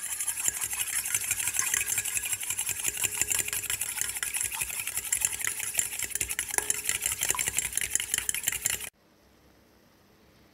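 A fork whisking egg and milk in a stainless steel bowl: a fast, even run of metallic clicks and scraping as the tines strike the bowl, which cuts off suddenly near the end.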